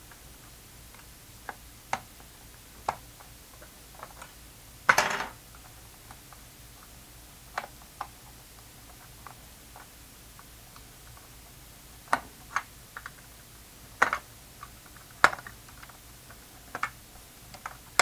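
Plastic keys of an Alesis V49 MIDI keyboard being pried off the keybed with a screwdriver: scattered sharp clicks and snaps, with one louder, longer snap about five seconds in and more frequent clicks in the last third.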